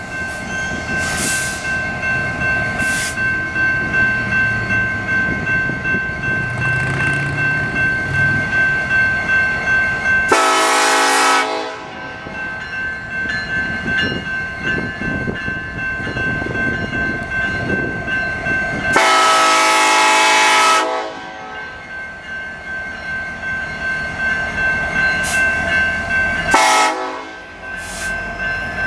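Air horn of a BNSF diesel locomotive leading a coal train, sounding three blasts: a short one about ten seconds in, a longer one a little before twenty seconds, and a brief one near the end. Between the blasts the train runs by steadily, with a regular pulse in the sound.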